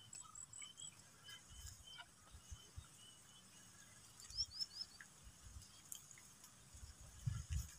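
Faint outdoor ambience of small birds chirping, with three quick rising chirps about halfway. A fast, high, evenly pulsed insect-like tone stops about a second in, and a few low thuds come near the end.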